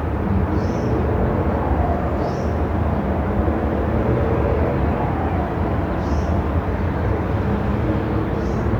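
Steady low rumble of a moving car, engine and road noise, with a short high chirp about every two seconds.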